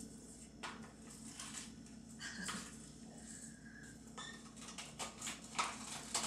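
Plastic frozen-drink pouch crinkling and rustling as it is squeezed and slush is pushed out into a glass, with scattered faint clicks and two brief thin squeaks.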